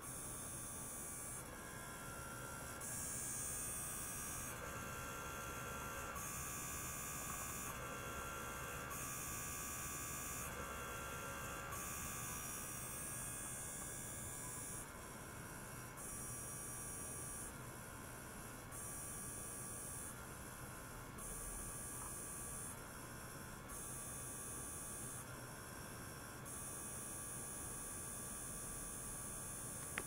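Electronic hum from ultrasonic probes driven by a function generator in a beaker of water, with a high hiss and faint whining tones that switch on and off in blocks every one to two seconds as the oscillation is controlled.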